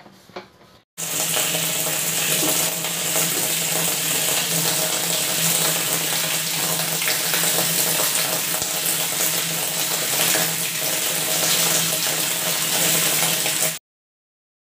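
Water running and splashing inside a plastic water tank, a loud steady rush that starts abruptly about a second in and cuts off suddenly near the end.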